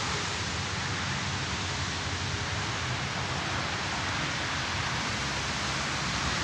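A steady, even hiss at a constant level, with no separate sounds standing out from it.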